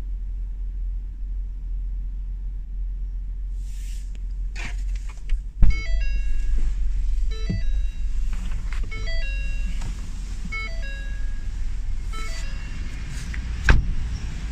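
Steady low rumble of the Ford F-150's 3.5 L V6 idling, heard from inside the cab. From about five seconds in, a tinkly melody of short chime-like notes plays for several seconds. There is a loud thump at the start of the melody and another near the end.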